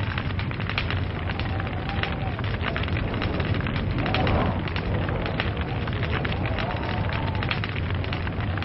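Log fire burning, with dense irregular crackles and pops over a steady low rumble of the flames; the fire swells briefly louder about four seconds in.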